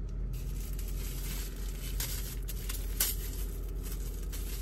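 Plastic dessert cup being handled and opened: crinkling and rustling plastic, with a sharp snap about three seconds in.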